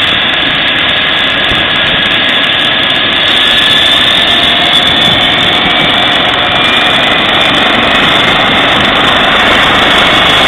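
Eurocopter EC135 air ambulance helicopter running on the ground with its rotor turning: a steady turbine whine over rotor and engine noise, getting slightly louder about three seconds in.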